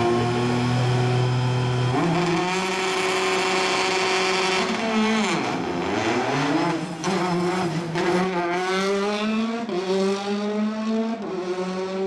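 Rally car engine at high revs. It drops in pitch as the car slows about halfway through, then accelerates hard, its note climbing and breaking at each gear change.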